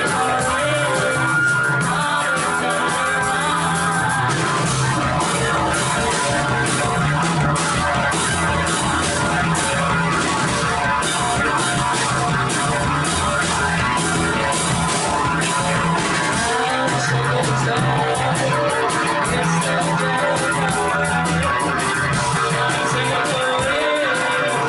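Rock band playing live: electric guitar, bass and drums, with the cymbals hit steadily and more densely from about four seconds in.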